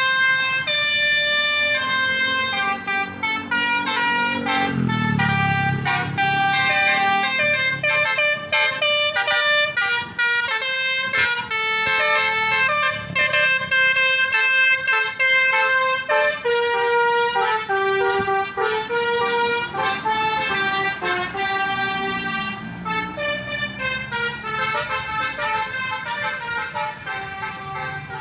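Bus basuri horn, a multi-tone electric air horn, playing a melody in stepped notes one after another, quieter in the last few seconds.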